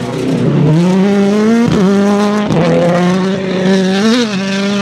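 Rally car engine running at high revs under hard acceleration, rising in pitch at first, then held high with quick gear changes breaking it about 1.7 and 2.5 seconds in and a short blip near the end.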